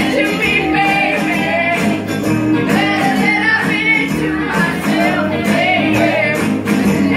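Karaoke: a group of amateur singers singing along into microphones over a recorded backing track, amplified through the room's speakers.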